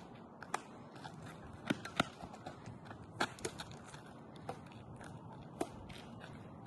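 Badminton rally: sharp irregular taps of racquets striking a shuttlecock, the loudest about two seconds in, then at three seconds and again near the end, among lighter clicks and footsteps on the court.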